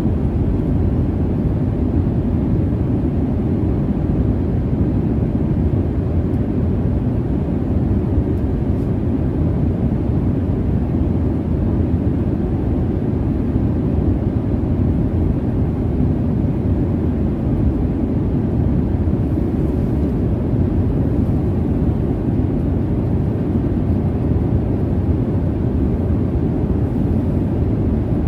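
Jet airliner cabin noise in cruise: a steady, low rumbling roar of engines and airflow, unchanging throughout.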